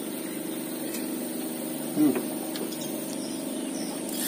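An engine running steadily, a low even hum, with a short falling sound about two seconds in.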